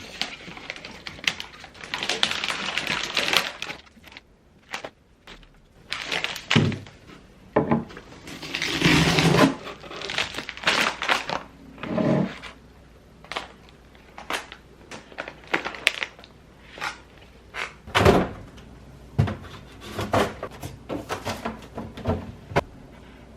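Objects being handled and moved about: a string of knocks, thuds and clicks, with stretches of rustling, scraping noise.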